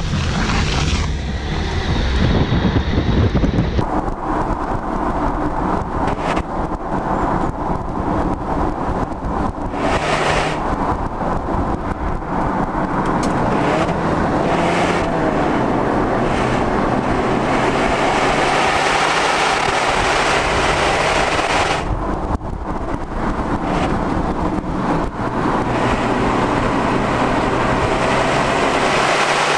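Alfa Romeo Stelvio's 2.0-litre turbocharged four-cylinder engine under way, heard from outside the car with tyre roar on the road and wind on the microphone. The sound is steady, with a change in its high end about four seconds in and a brief dip later on.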